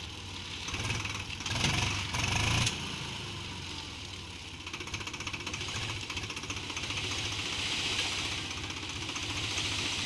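A tractor's diesel engine runs while its hydraulic tipping trolley unloads soil. The engine is louder for the first two and a half seconds or so, then drops to a steady idle, with a light hiss of earth sliding off the raised trailer.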